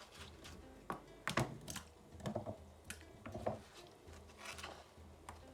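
Irregular light knocks and clatter, about a dozen, of cut potatoes and kitchen utensils being handled in a bowl of water.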